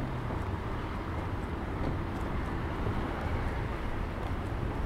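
Steady outdoor city street ambience: a continuous low rumble and hiss, with a few faint ticks.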